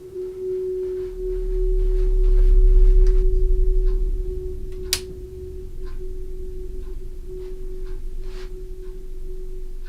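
A steady, pure hum-like tone held throughout. Under it a deep low rumble swells up and fades away over the first few seconds, and a single sharp click sounds about five seconds in.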